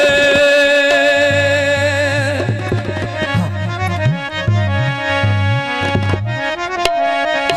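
Instrumental interlude of Punjabi folk music between sung verses: a held, reedy melody line that begins moving from note to note after a couple of seconds, over a low stepping bass line.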